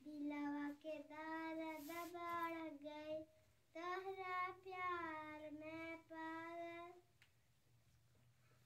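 A young girl singing unaccompanied: two sung phrases with a short breath between, then she falls silent about a second and a half before the end.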